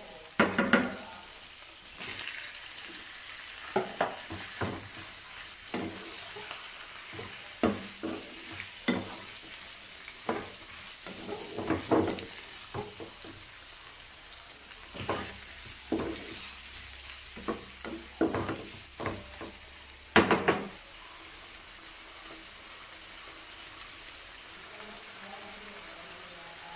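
Chicken and pork pieces sizzling in oil in a nonstick frying pan, stirred with a wooden spatula: irregular scraping and knocking strokes against the pan for about twenty seconds, then only the steady sizzle.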